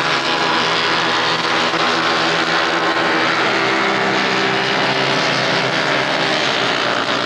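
Racing motorcycle engine running hard at high revs, a loud, steady drone with no pause.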